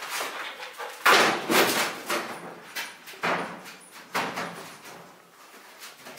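A dog jumping up and clambering onto metal storage shelving, the shelves rattling and knocking under its paws in several loud bursts, the loudest about a second in.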